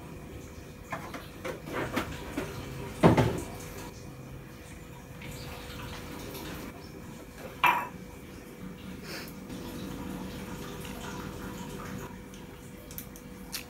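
Kitchenware being handled: dishes and utensils clinking and knocking as they are picked up and set down. There are a few separate clinks at uneven intervals, the loudest about three seconds in and another near the middle.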